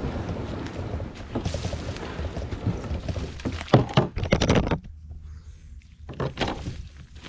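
A plastic kayak being dragged over leaf litter and roots on the forest floor: a rough scraping rumble, then a quick run of knocks about three and a half seconds in. After a short lull a couple more knocks come near the end.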